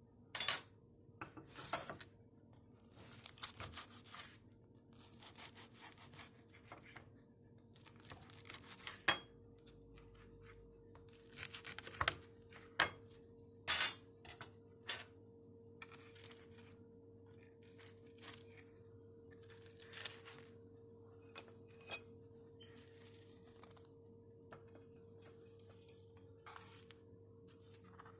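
Kitchen handling sounds: short rasping scrapes, like crisp bread being cut or torn, with scattered clicks and clinks of cutlery and dishes over a faint steady hum.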